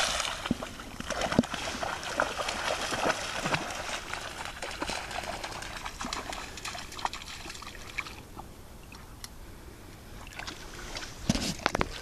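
A Rhodesian ridgeback splashing as it runs through shallow pond water, then sloshing the water as it works at a stick; the splashing is heaviest in the first eight seconds and eases after that, with a few sharp splashes near the end.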